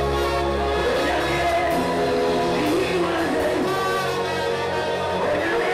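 Live gospel music: a man singing into a microphone over a sustained band accompaniment.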